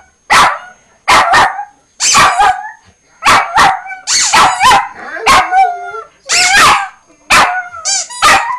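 Small black-and-tan dog barking at a toy newspaper held in front of it: loud, high-pitched yapping barks, mostly in quick pairs and clusters about once a second.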